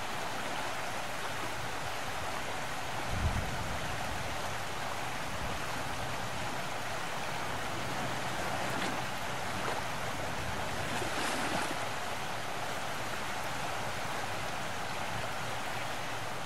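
A steady wash of outdoor noise, with a single low thump about three seconds in.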